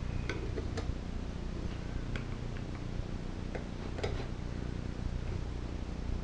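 Metal gasket scraper clicking and scraping against the pressed-in breather valve of a Tecumseh small-engine block as it is pried loose: scattered light ticks, with a sharper click about four seconds in, over a steady low hum.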